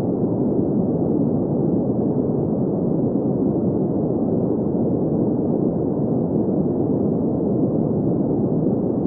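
Green noise: a steady, unchanging hiss with its weight in the mid-low range, softening above and cut off above about 2 kHz.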